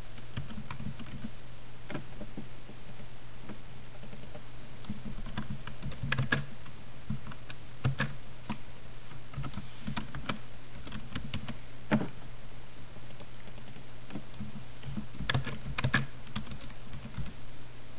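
Typing on a computer keyboard: irregular runs of keystrokes with pauses between them, over a steady low hum.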